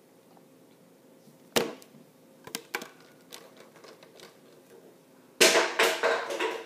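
A single sharp thump about a second and a half in, a person slumping down onto a table in a mock faint, followed by a few light knocks and, near the end, a louder burst of rustling and clatter.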